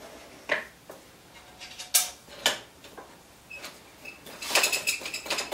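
Small brass knurled nuts and wooden jig parts being handled and fitted together: a few separate sharp clicks and knocks, then a quick run of metallic clinking near the end.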